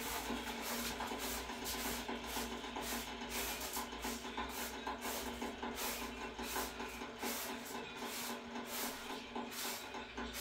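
Background music with steady held tones and a light, regular beat of about three strokes a second.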